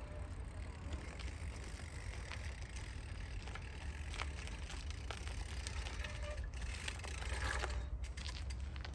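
A folding electric bicycle rolls up over a gravel path and stops. Its tyres crunch and tick on the loose stones, a little louder near the end as it arrives close by, over a steady low rumble.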